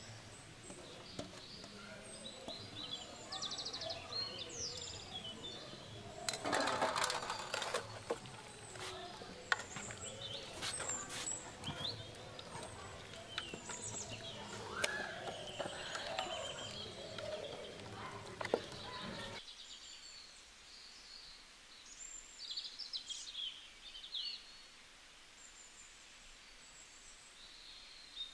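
Small birds chirping and twittering throughout, with sharp clicks, knocks and wet handling noises from hands working marinated chicken in a steel pot over the first two-thirds. The low background noise drops away suddenly about two-thirds through, leaving mostly the birdsong.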